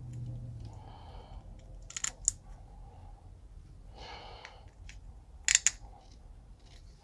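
A few short, sharp clicks of small metal parts being handled, a pair about two seconds in and another about five and a half seconds in, as M4 nuts are fitted into a 3D printer's carriage plate.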